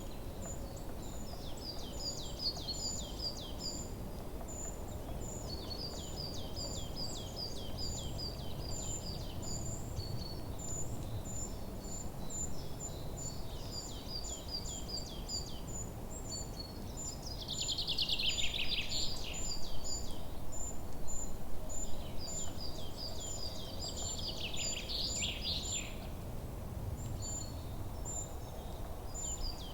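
Birds chirping: quick repeated high chirps and short trills in runs, over steady background noise. The chirping swells louder twice, about eighteen and twenty-five seconds in.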